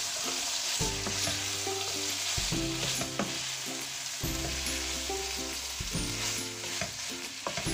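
Chicken, onions and green peppers sizzling in oil in a frying pan while a wooden spatula stirs them, with a few clicks of the spatula against the pan. Soft background music plays underneath.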